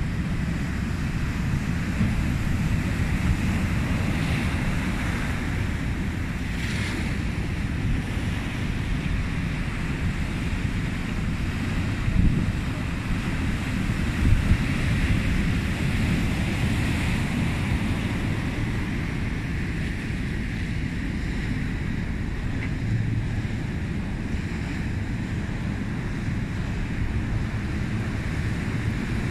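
Rough sea surf breaking and washing over a rocky shore, with wind buffeting the microphone as a steady low rumble.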